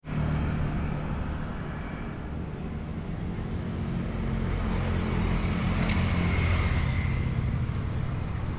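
Road traffic passing, motorcycles among it: a steady rumble of engines and tyres, with a short high-pitched tone about six seconds in.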